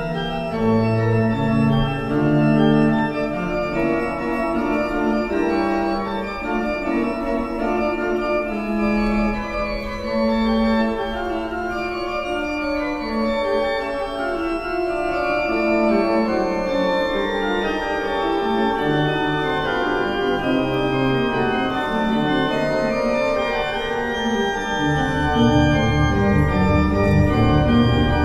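Pipe organ playing a polyphonic piece, with several sustained lines moving against each other. Deep bass notes come in strongly near the end.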